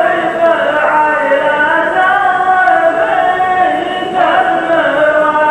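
Men's voices chanting a line of qalta poetry to a slow, drawn-out melody, with no instruments. The chant pauses briefly about four seconds in and then goes on.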